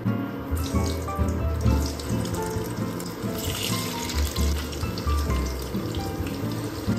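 Background music with the sizzle of potato chunks frying in hot oil in a nonstick pan. The sizzle is loudest about halfway through.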